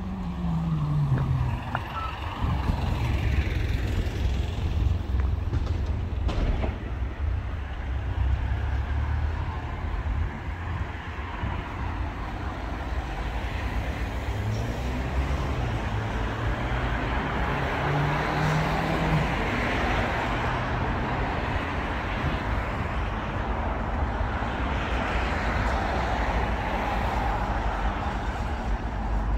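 Road traffic: a steady low engine rumble and tyre noise of passing vehicles. One engine's note drops in pitch about a second in, and the tyre noise swells in the second half.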